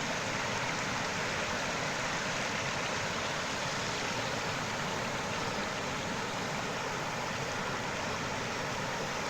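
Water in a stream flowing steadily, an even rushing sound with no change.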